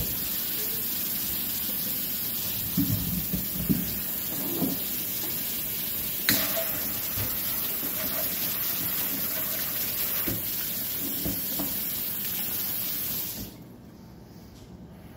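Kitchen faucet running steadily into a stainless steel sink while potatoes are rinsed, with a few light knocks and a sharp click about six seconds in. The water cuts off suddenly near the end.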